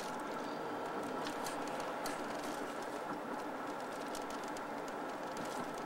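Steady noise of a car heard from inside its cabin, its engine running with a faint steady hum.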